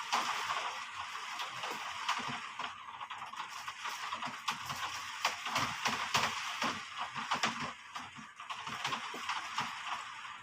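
Heavy rain falling: a steady hiss with many irregular sharp taps of drops striking close by.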